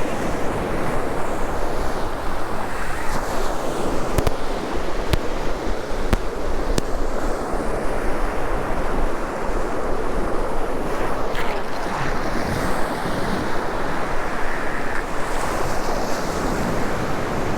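Surf breaking and washing steadily on a sandy beach, with wind buffeting the microphone and a few faint, scattered clicks.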